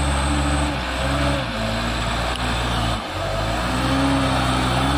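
Mitsubishi Fuso Canter diesel truck engine revving hard under load as the coal-laden truck tries again to climb a slippery mud slope. The engine pitch sags and climbs back several times, with a brief drop about three seconds in.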